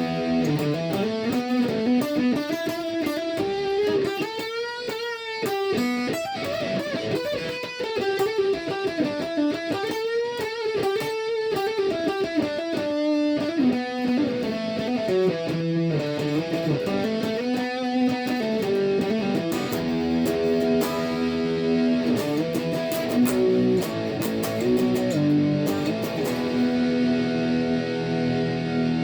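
Washburn Eagle electric guitar played with overdrive: single-note lead lines with wide string bends and vibrato, moving into held notes and chords in the second half.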